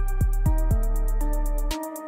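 Electronic outro music: a synth melody stepping through pitched notes over deep bass hits, dropping away briefly near the end.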